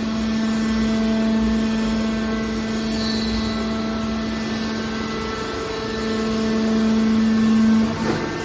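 Horizontal hydraulic metal baler's hydraulic pump unit running with a steady hum, louder for a couple of seconds near the end before it drops away.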